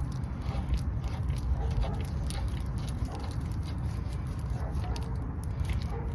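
Small metallic clicks and clinks as the washer and spindle nut are fitted onto a front hub spindle, over a steady low rumble.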